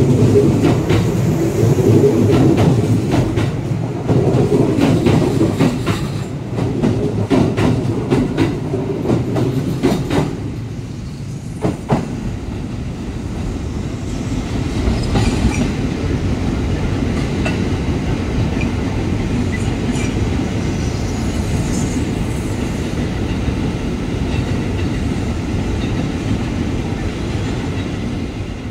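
Kintetsu electric train running close past the platform, its wheels clacking rapidly over the track, for about the first ten seconds. Then another train's steady rumble as it comes over the curved trackwork, with a few faint, brief high wheel squeals.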